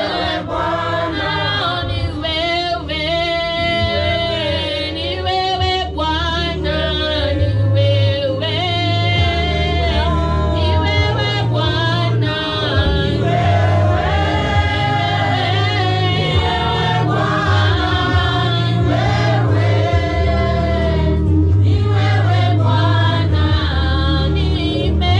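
Church choir singing a gospel praise song with instrumental backing; deep bass notes come in strongly about eight seconds in.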